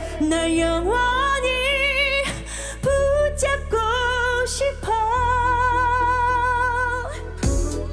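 Live pop ballad: a woman singing solo into a handheld microphone, holding long notes with vibrato over steady low accompaniment chords. Percussion hits come in near the end.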